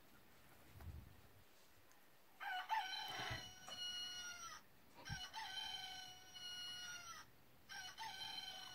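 A stuffed chicken toy's built-in sound chip playing a recorded rooster crow, which repeats three times, each call about two seconds long, starting a couple of seconds in. A couple of soft thuds come between the calls.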